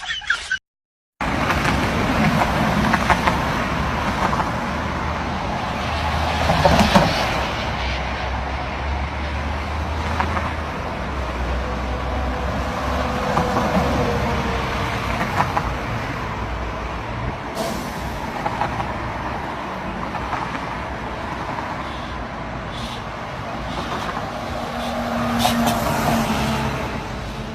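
Steady road-vehicle noise, a car running or passing traffic, with a low rumble throughout, after a brief dropout to silence about a second in.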